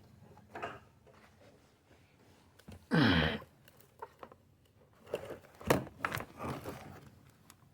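Hands working at a wheelchair's motor plug and wiring: scattered clicks and crinkling rustles, with one sharp click a little under six seconds in. About three seconds in there is a short grunt, falling in pitch.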